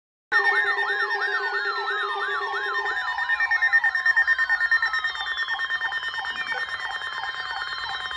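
Several electronic siren and alarm tones layered at once, starting abruptly: a fast yelp warbling about three times a second, a steady high tone, slow falling sweeps, and a low buzz that stops about three seconds in. It is an alert sound played ahead of a severe thunderstorm warning.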